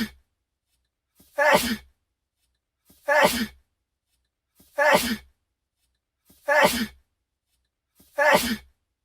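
The same short sneeze from a man, played over and over as a loop: five sneezes about every 1.7 seconds, each with a brief catch of breath just before it and dead silence between.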